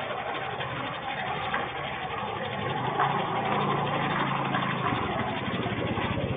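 Steady hiss of falling rain, with a motor vehicle's engine running underneath that grows louder from about halfway and ends in a fast, even puttering.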